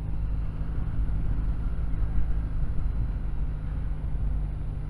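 Kawasaki W800's air-cooled parallel-twin engine running at a steady cruise while riding, under a steady rush of wind and road noise.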